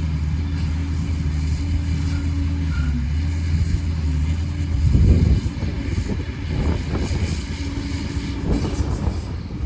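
Liebherr PR 746 crawler dozer's diesel engine running with a steady hum. About five seconds in it turns louder and rough, with uneven rumbling and knocking to the end.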